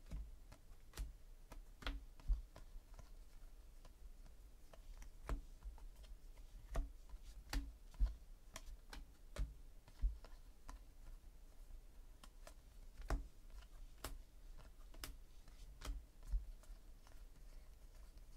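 Trading cards, 2017 Panini Classics football base cards, being flipped one at a time from one stack to the other in the hands, each card giving a soft click as it slides off and lands, at an uneven pace of roughly one a second.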